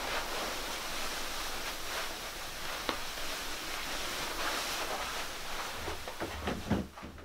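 Steady background hiss with faint rustling as a person gets up from a chair and moves about, then a few soft low thuds near the end.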